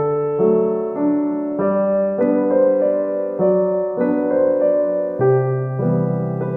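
Background music: a gentle piano or electric piano playing chords, with a new chord or note about every half second.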